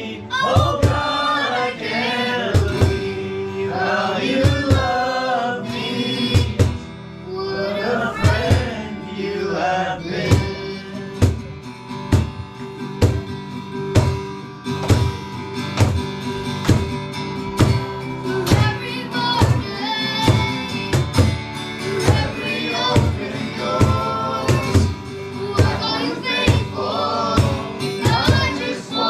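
Live worship music: several voices singing together over a band with a steady beat.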